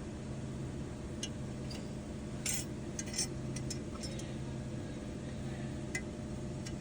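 Scattered light metallic clinks and taps, with one short scrape about two and a half seconds in, as transfer case parts and tools are handled, over a steady low hum.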